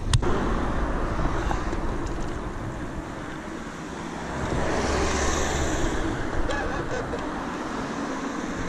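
Wind rushing over a body-mounted action camera's microphone while a bicycle rolls along an asphalt street, mixed with road traffic. The rush swells for a couple of seconds near the middle.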